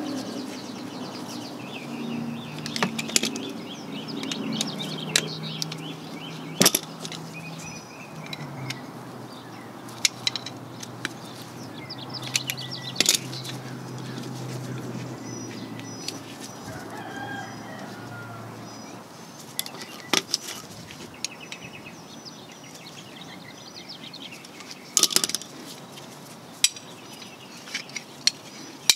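Small steel parts and pliers clicking and scraping as a cotter pin is reseated to hold the parking-brake lever on a new rear drum brake shoe. The sharp clicks come now and then, with glove and handling rustle between them.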